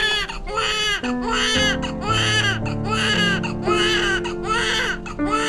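A newborn baby crying vigorously, short rising-and-falling wails one after another in quick succession, over background music with sustained held notes.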